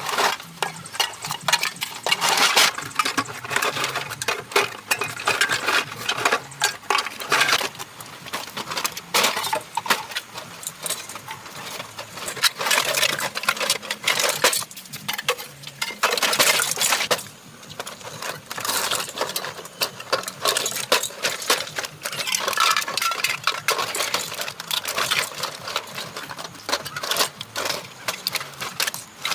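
Dense, irregular clicking and clattering.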